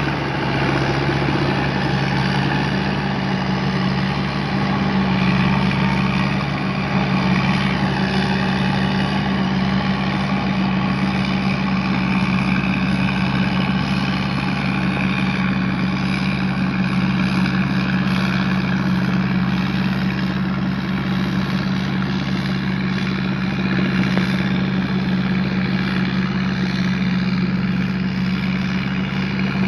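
Tamco S9000 combine harvester running steadily, its Isuzu 6HK1 six-cylinder diesel engine and machinery giving a constant low hum with no change in speed.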